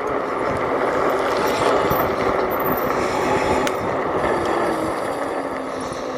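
Steady mechanical rattling and rolling noise of a vehicle being ridden fast along a rough trail.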